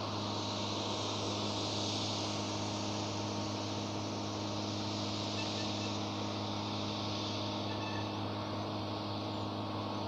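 A steady low engine hum with a continuous high insect buzz over it.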